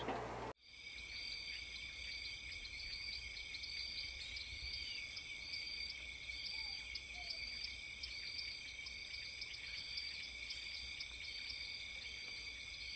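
Faint insect chorus: steady high trilling with a regular chirp about twice a second, starting abruptly about half a second in.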